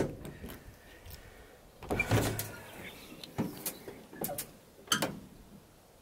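Ford Transit van door being unlatched and swung open: a scatter of short clicks and knocks, the biggest clunk about two seconds in and another near the end.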